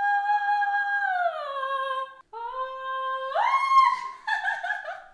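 A woman singing high held notes without accompaniment, stretching for a soprano line. A long high note slides down partway, then after a short breath a lower note leaps up to an even higher one, held a moment before it breaks off.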